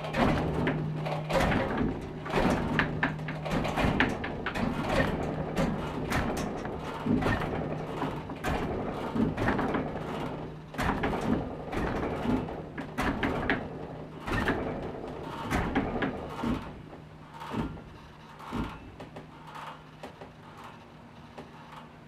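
Peal of three cast-steel church bells tuned C-sharp, E and F-sharp, cast by the Bochumer Verein, dying away: the clapper strikes come thick and loud at first, then grow sparser and fainter over the second half as the bells swing to rest, leaving a steady low hum.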